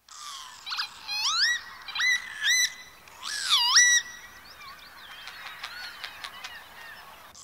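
Bird calls: about five loud, rising whistles in the first four seconds, one dipping before it rises, then softer scattered chirps over a faint steady hiss.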